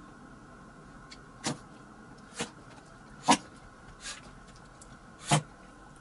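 A Chihuahua sneezing in a run of five short, sharp sneezes about a second apart. The third and last are the loudest, and the last has a short intake before it.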